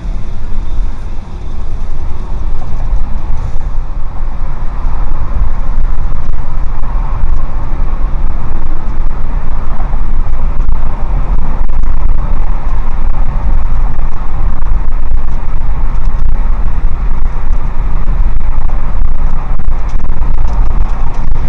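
Steady low road and engine rumble of a car driving on a highway, heard from inside the cabin through a dashcam; it grows louder over the first few seconds and then holds steady.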